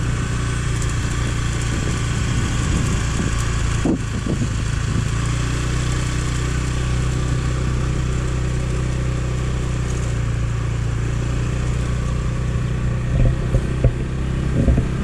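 Motorbike engine running at a steady cruising speed, with wind and road noise, and a few sharp knocks near the end.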